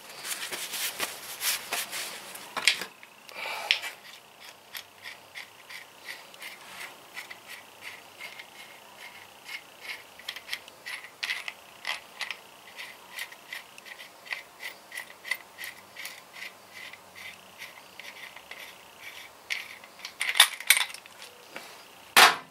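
Light metallic clicking at an even pace, a little under two clicks a second, from hand work on the engine's piston and cylinder, with a louder clatter near the end.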